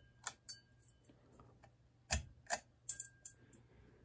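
Several sharp, irregularly spaced clicks, a few with a brief light ring, over a faint steady low hum.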